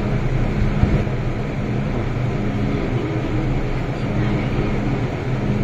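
Steady running noise of an MTR Island Line M-Train heard from inside the car, with a low hum that fades about half a second in and comes back near the end.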